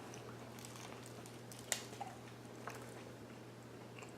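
A person chewing a mouthful of cheesesteak sandwich, faint, with a few small mouth clicks over a steady low hum.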